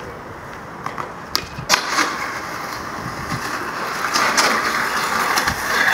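A skateboard with a few sharp clacks in the first two seconds, then the board scraping down a metal handrail, the grinding noise growing louder toward the end.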